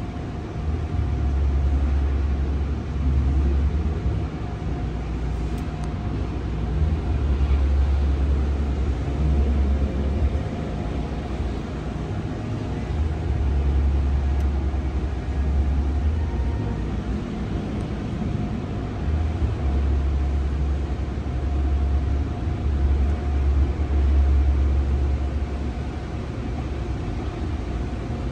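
Automatic car wash tunnel heard from inside the car: water and soap spraying over the windshield and body as a steady hiss, with a deep rumble that swells and fades every few seconds.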